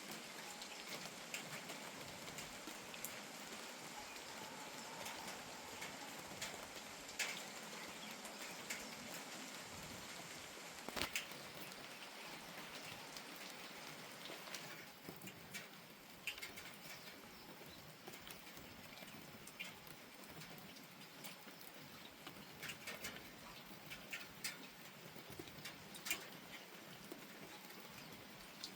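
Steady, soft rain falling, with scattered single drops tapping at irregular moments.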